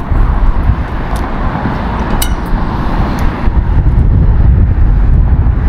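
Wind buffeting an action camera's microphone, a loud, uneven low rumble. A broader rushing noise swells in the first half and fades about three and a half seconds in, with a few faint clicks.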